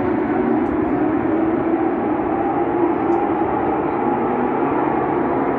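The massed flat-six engines of a field of Porsche Carrera Cup race cars, running together at high revs as the pack accelerates at the race start. Many engine notes overlap at slightly different pitches that drift up and down.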